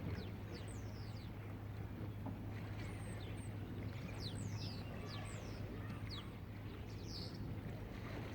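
Birds chirping: many short, quickly falling high chirps scattered throughout, over a steady low hum.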